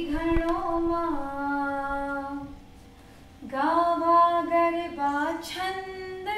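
A woman singing long, held notes of a Gujarati garbo hymn to Goddess Bahuchara, solo voice in two sustained phrases with a short break about three seconds in.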